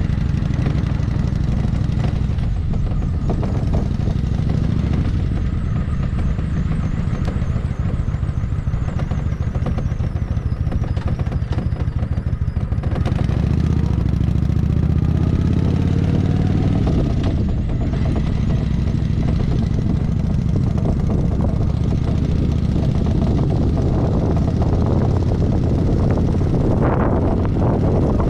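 Kawasaki Vulcan 900's V-twin engine running as the motorcycle cruises at low speed. The engine eases off for a few seconds about halfway through, then pulls harder again.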